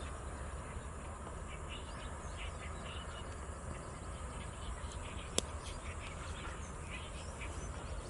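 Faint short bird calls from several birds at a distance, scattered throughout over a steady low background rumble, with a single sharp click about five and a half seconds in.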